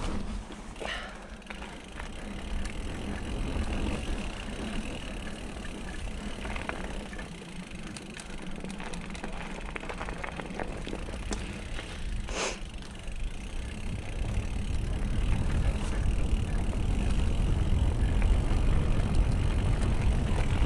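Mountain bike rolling down a dirt and gravel forest trail: steady tyre noise and low rumble, with a couple of sharp knocks from the bike, one about a second in and one at about twelve seconds. The rumble grows louder after about fourteen seconds.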